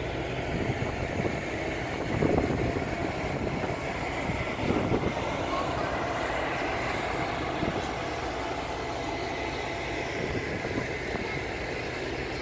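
Wind buffeting the microphone on the open deck of a cruise ship under way: a steady low rumble with stronger gusts about two and five seconds in.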